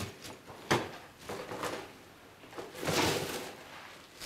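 Rustles and light knocks of things handled on a table: a sharp knock under a second in, softer rustles after it, and a longer rustle about three seconds in.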